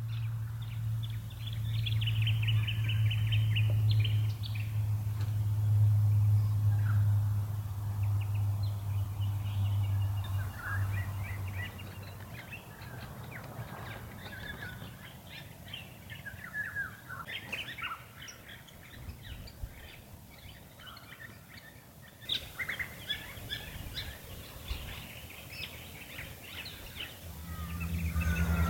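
Wild birds calling and chirping, many short calls overlapping throughout. A loud low steady hum runs underneath for the first twelve seconds, then stops.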